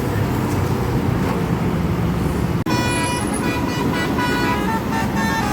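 Low rumble of bus and traffic noise. Then, after a sudden cut about two and a half seconds in, a 'telolet' bus horn plays a tune: several horn tones stepping from pitch to pitch.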